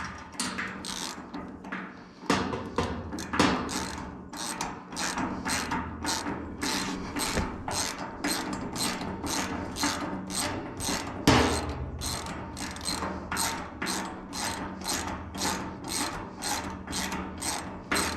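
Ratchet wrench being worked back and forth to turn a bolt during assembly, a ratcheting click about twice a second after a few scrapes and knocks at the start.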